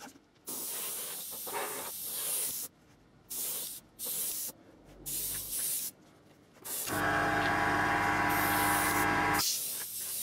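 Airbrush spraying weathering paint in several short hissing passes, then one longer, louder pass about seven seconds in with a steady hum under the hiss. These are light passes of overspray along the model locomotive's body side to blend the chassis and roof into it.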